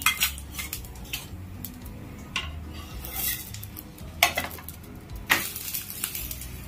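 A spatula scraping and knocking on a flat griddle (tawa) as a gram-flour pancake (besan chilla) is loosened and flipped over. The sound is a string of separate clicks and scrapes, the sharpest at the start and about four and five seconds in.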